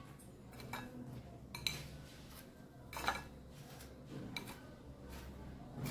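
Fried chops being set down one at a time on a plate, with about five separate light clinks against the plate, each ringing briefly.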